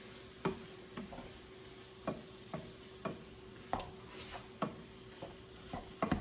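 Black plastic spatula stirring and scraping through a skillet of ground beef and shredded cheddar cheese, with a short tap or scrape about every half second, over a faint sizzle from the hot pan.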